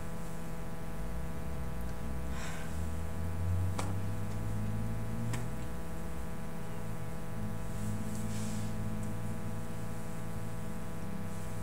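Steady electrical hum and hiss of room tone, with a few faint clicks and two short rustles.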